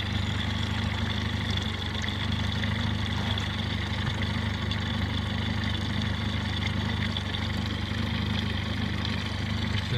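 Boat engine idling steadily: an even low hum.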